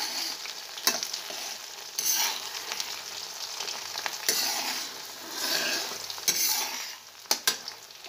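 Soaked, peeled mochai (field beans) deep-frying in hot oil in a black kadai, sizzling steadily as a slotted ladle stirs them. The sizzle swells with each stir, and the ladle clicks against the pan about a second in and twice near the end.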